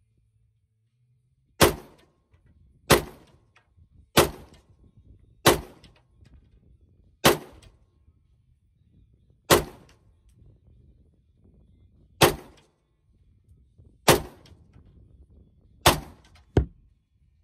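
AR-15 pistol with a 10-inch 5.56 barrel firing single shots, about ten sharp cracks spaced one to three seconds apart, each with a short ringing tail. The last two shots come close together near the end, the final one weaker.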